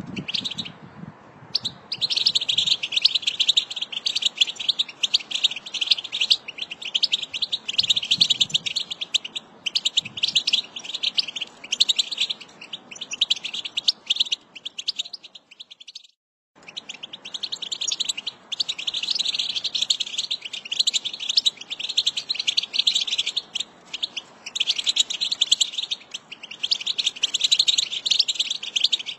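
American goldfinch song: a long, rapid run of twittering warbles and chirps, almost unbroken. It breaks off to silence for a moment about halfway through.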